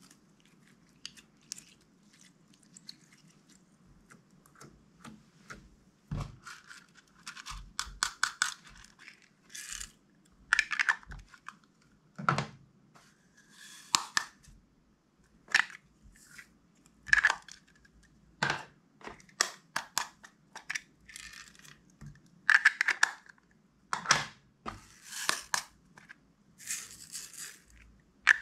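Hands kneading and stretching slime: repeated short wet squishes, pops and tearing sounds. They are faint for the first few seconds, then louder and more frequent from about six seconds in.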